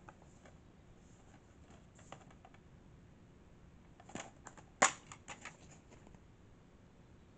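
Plastic DVD case being handled and opened: light tapping and rubbing, then a cluster of clicks a little after four seconds and one sharp snap near five seconds, followed by a few lighter clicks.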